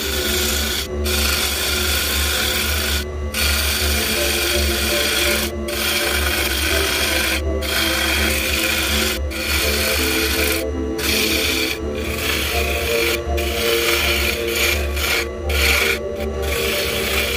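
A hand-held turning tool cutting spinning maple on a wood lathe: a steady scraping of wood being cut over a low hum. The cut stops for a moment every second or two as the tool lifts off the wood, more often near the end.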